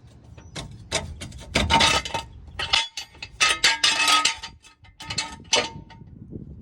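Metal clinks, knocks and scraping from work under a truck as the oil filter is reached for and worked at by hand and tool, some strikes ringing briefly.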